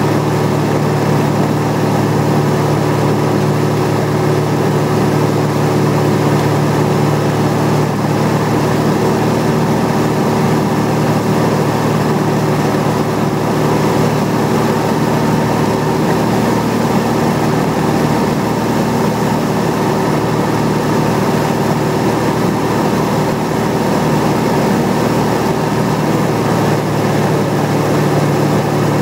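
Single-engine light aircraft's engine and propeller running steadily in flight, heard from inside the cockpit.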